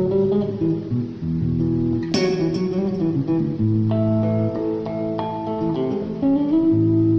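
Electric bass guitar played solo: held notes and double-stops ringing over one another, changing every second or so, with one sharp, bright plucked attack about two seconds in.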